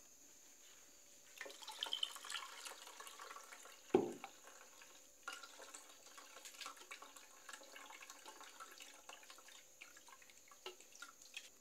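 Faint wet sloshing and dripping as ground fresh corn is worked by hand through a plastic sieve, its liquid straining into a pot below. There is one short knock about four seconds in.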